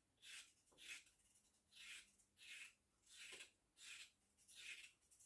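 Faint knife scraping strokes as a carrot and a potato are peeled by hand: a regular series of short scratchy strokes, about seven of them, roughly one every 0.7 seconds.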